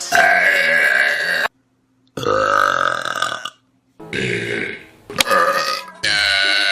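Long, loud human burps one after another. Each is a drawn-out, pitched belch lasting about a second, with short gaps between them.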